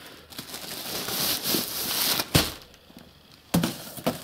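Plastic packaging on cricket batting pads rustling and crinkling as the pads are shifted about in a cardboard box. Two dull knocks come about two and a half and three and a half seconds in, with quieter rustling between them.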